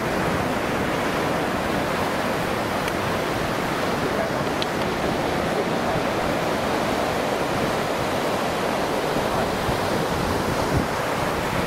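Steady rush of surf breaking and washing up a sandy beach.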